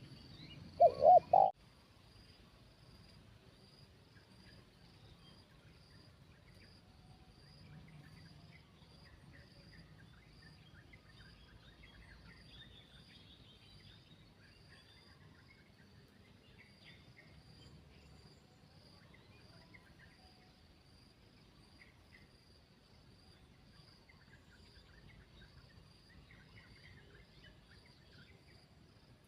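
Spotted dove cooing, two short deep notes about a second in. Then a faint, steady insect chirring, with scattered small-bird chirps over it.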